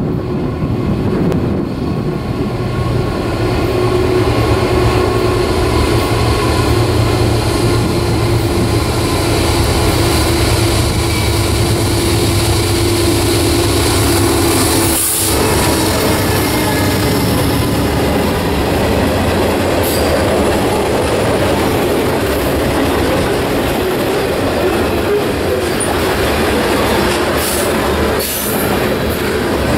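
Two GE Dash 9-40C diesel-electric locomotives, each with a 16-cylinder GE FDL engine, run steadily as they approach and pass close by at the head of a freight train. About halfway through, the engine sound gives way to the steady rolling of freight car wheels over the rails.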